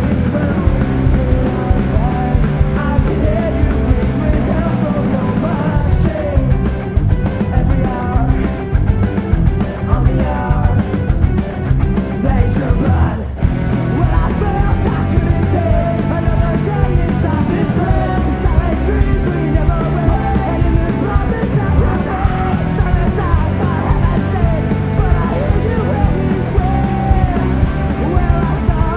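Rock song with singing.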